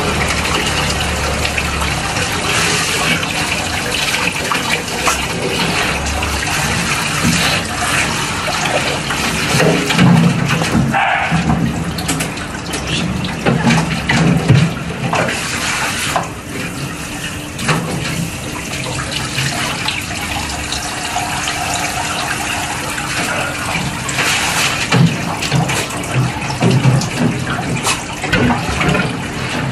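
Water running from a handheld shower sprayer and wall tap, splashing over a dog and into a concrete sink as the dog is rinsed. Scattered short knocks and clatter run through it.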